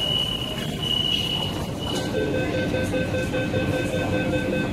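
Metro train standing at a station platform with its doors open: a steady hiss and hum from the car's ventilation and electrical equipment. A high tone comes and goes in the first second or two. From about two seconds in, a faint steady whine of several pitches joins it.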